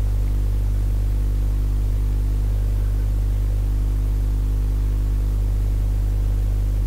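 Steady electrical mains hum with its overtones, over a faint hiss.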